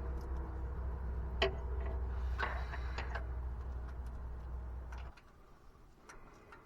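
Scattered sharp clicks and taps of hand tools and metal parts being handled during work on a truck's starter bolts, over a low rumble that cuts off suddenly about five seconds in.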